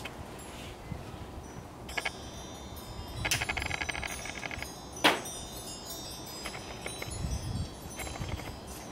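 Wind chimes ringing, several metal tones sounding together in clusters, with a sharp click about five seconds in.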